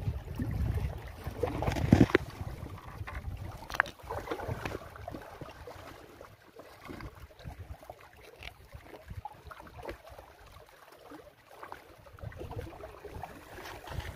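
Wind buffeting the microphone with a gusty low rumble, loudest in the first two seconds, over small lake waves lapping at shoreline rocks. There are a couple of sharp knocks about two and four seconds in, then softer crackles and ticks of handling.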